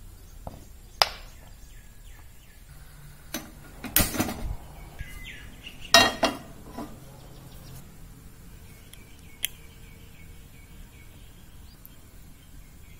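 Kitchen handling noises: several sharp knocks and clinks of cookware and food on a wooden chopping board and a stovetop pan. The loudest comes about six seconds in.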